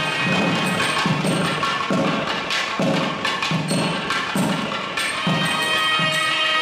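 Kerala temple festival music. Low drum strokes keep a steady beat a little faster than once a second, under held notes from a wind instrument with a metal bell, and high metallic ticks.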